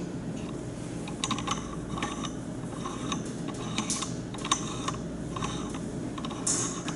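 Irregular light clicks and taps over a steady low hum, with a short rustle near the end.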